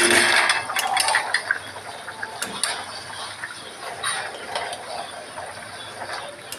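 Thin egg-and-potato curry boiling in a metal pan, with a spatula stirring it and scraping and clicking against the pan. It is loudest in the first half-second, then settles to a lower crackle with scattered small clicks.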